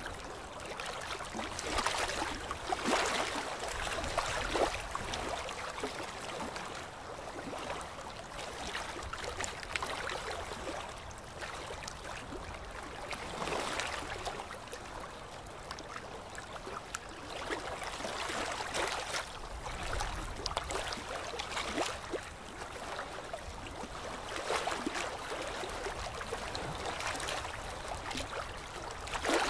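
Wet hissing and gurgling noise that swells and fades every few seconds, with fine crackle through it.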